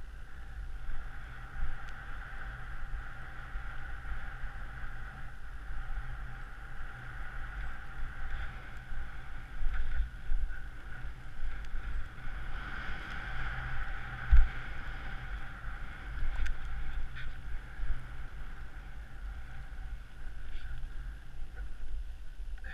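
Skis running through soft snow with a steady hiss, under a low wind rumble on the microphone. There is one sharp thump about fourteen seconds in.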